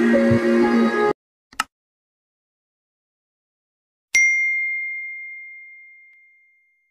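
Background music cuts off about a second in, followed by a brief swish. Then comes a single bell-like ding that rings out and fades over about two seconds: a subscribe-button notification sound effect.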